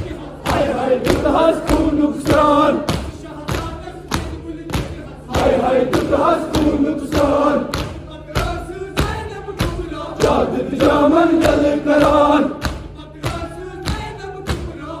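A crowd of men chanting a noha together in phrases, with rhythmic matam chest-beating, palms slapping chests about twice a second.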